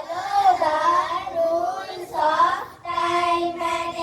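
Young children singing a song, with a long held note near the end.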